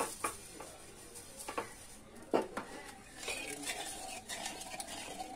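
A ladle stirring dosa batter in an aluminium pot, knocking and scraping against the pot's sides: a few sharp clinks, the loudest about halfway through, with a quicker cluster of clinks just after.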